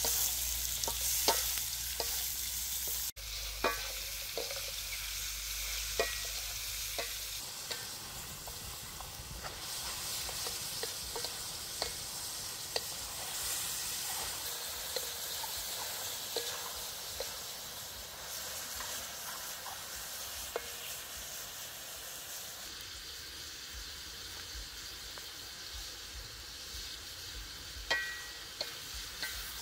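Mushrooms and chillies sizzling in a steel wok, with a steady frying hiss. A wooden spatula stirring and scraping through them gives occasional sharp clicks against the wok.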